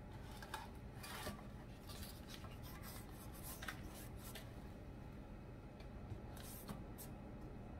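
Faint, irregular rubbing and scraping of a stick of butter, partly in its paper wrapper, being spread over the inside of a metal loaf pan to grease it.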